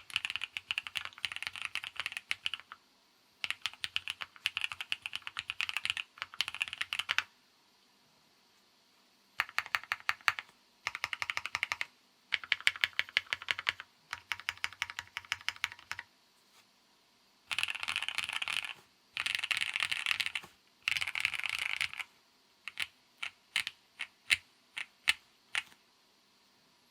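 Sea75 custom mechanical keyboard being typed on: fast runs of keystrokes lasting a few seconds each, separated by short pauses. Near the end come about a dozen single, separate key presses.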